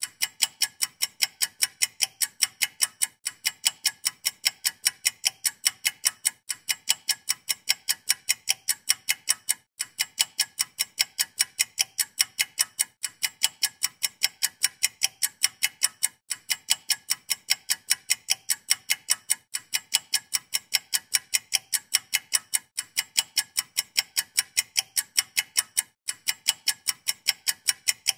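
A clock or timer ticking: rapid, even ticks, a few a second, with a short break about every three seconds.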